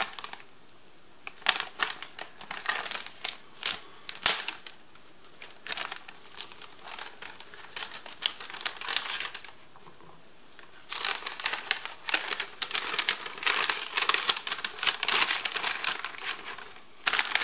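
Thin plastic flameless ration heater sleeve crinkling and rustling as it is handled and an egg is slipped into it. There are a few sharp clicks early on, a quieter stretch in the middle, and then dense, steady crinkling toward the end.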